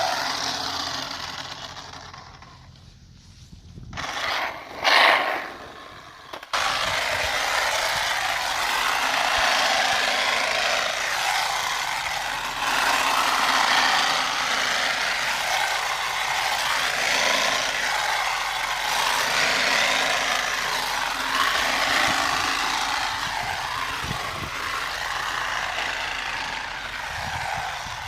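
Small engine of a motorised pennywort-cutting machine running steadily as it cuts. The sound fades and surges briefly in the first few seconds, then comes back abruptly and steadily about six and a half seconds in.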